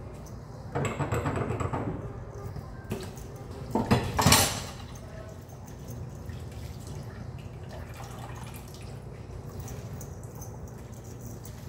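Kitchen faucet running a thin stream into a stainless steel sink while a glass is scrubbed with a soapy sponge and rinsed. The water comes on about a second in, and a brief louder burst of noise comes about four seconds in.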